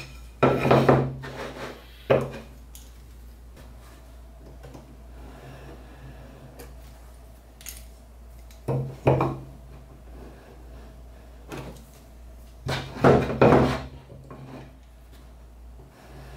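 A wooden board handled on a cutting mat: set down, shifted and rubbed, giving three clusters of wooden knocks and scraping, about half a second in, around nine seconds in and around thirteen seconds in, with quieter handling between.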